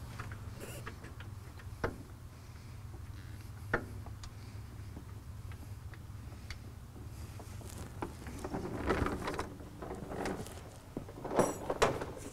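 Scattered metal clicks and clinks of hand tools and front-suspension hardware being worked under a truck. The clinks come more often in the last few seconds, with one ringing metal clink, over a steady low hum.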